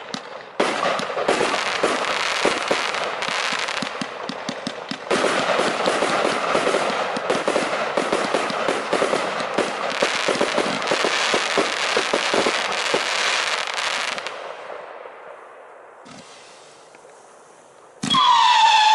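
A 144-shot 25 mm compound firework cake firing: dense, rapid crackling of shots and crackling stars, growing louder about five seconds in, then dying away over the last few seconds. Near the end a new volley starts with several falling, howling whistles, the cake's low-tone howlers.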